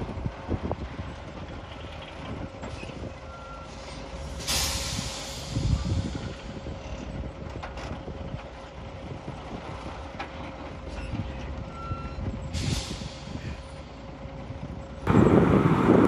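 Dump truck running with its reversing alarm sounding a steady tone, and two sharp air-brake hisses, about four and a half and twelve and a half seconds in. A much louder rushing noise comes in near the end.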